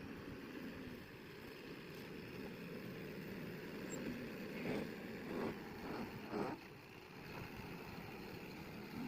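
Mahindra backhoe loader's diesel engine running steadily, with a few short louder surges about halfway through.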